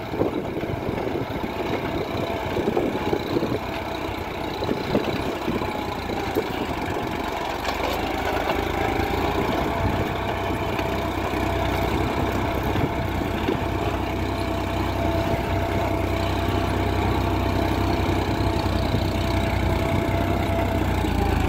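Tractor's diesel engine working steadily under load while pulling a mouldboard plough through dry, hard soil. The engine note grows a little louder and deeper about halfway through.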